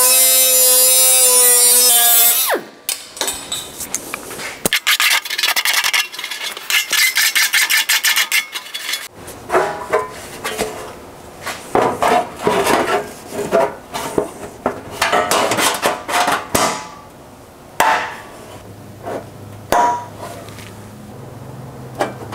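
Air die grinder with a cutoff wheel cutting thin sheet steel, a loud steady whine that stops after about two and a half seconds. It is followed by irregular metal clanks, scrapes and rattles as the sheet-metal fender panel is handled, fitted and clamped.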